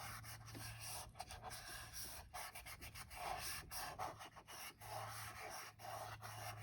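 Cardstock being rubbed and pressed down by hand onto a freshly glued wooden ornament base: repeated rubbing strokes with small clicks and rustles.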